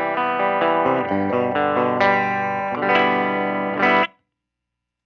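Electric guitar played with a clean tone through a Benson amplifier: picked notes and ringing chords, with fresh strums about two and three seconds in, stopping abruptly about four seconds in.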